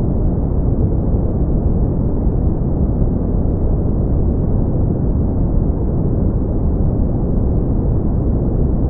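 Brown noise: a steady, deep rumbling hiss with its weight in the low end and little above the mids, unchanging throughout.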